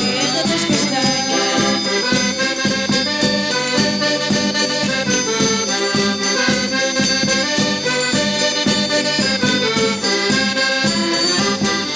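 Traditional Madeiran folk dance music: an accordion melody over jingling percussion, with a steady beat.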